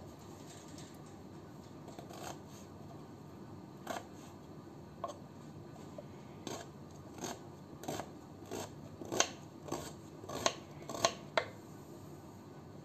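Kitchen knife chopping red onion on a wooden chopping board: short sharp knocks of the blade on the board. The knocks are spaced out at first, come about twice a second and louder in the second half, and stop a little over a second before the end.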